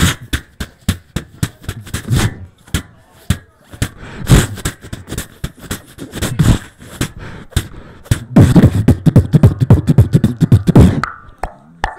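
Beatboxing into a handheld microphone: sharp clicked snares and hi-hats over deep bass kicks, breaking into a fast run of heavy bass hits about eight seconds in, with a brief pitched vocal sound near the end.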